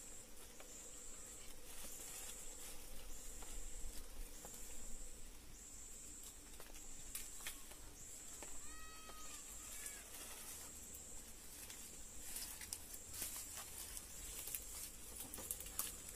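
Faint rustling and crackling of dry banana leaves and a plastic carrier bag being handled, with a high chirp repeating about every two-thirds of a second. About halfway through comes one brief animal call.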